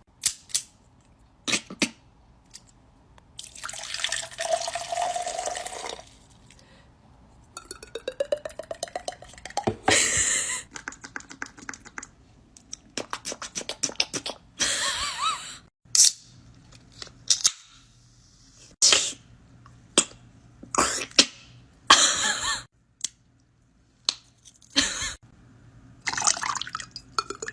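A string of sound effects made by mouth: sharp pops and clicks like water drips, a hiss of a couple of seconds with a held tone in it, and a fast rattling run that rises in pitch, each separated by short silences.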